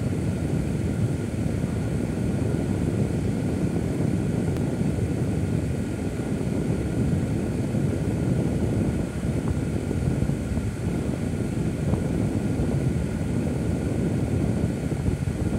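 Steady low rumble of a car rolling slowly, heard from inside the cabin, with a faint steady high whine on top.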